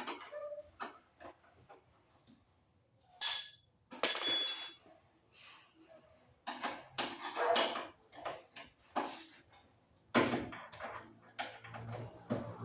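Metal tools and parts clinking and knocking as they are handled. There is a short ringing metallic clank about three seconds in and a louder one that rings for most of a second just after, then a run of irregular knocks and scrapes.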